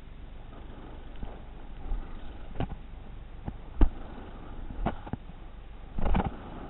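BMX bike riding a concrete skate bowl, heard from a helmet-mounted camera: a steady rush of rolling and wind noise, broken by several sharp knocks of the bike on the concrete. The loudest knock comes a little before midway, and a short clattering cluster comes near the end.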